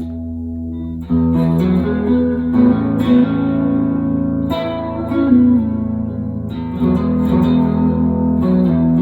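Electric guitar, a 2018 Gibson Les Paul Deluxe fitted with P90 pickups, played through an amplifier: a chord rings, and new chords are struck about every one to two seconds, with some notes bending in pitch.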